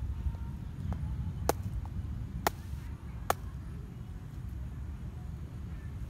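A large fish on the ground being struck with a hand-held tool: three sharp smacks about a second apart, with a fainter one just before them, over a steady low rumble.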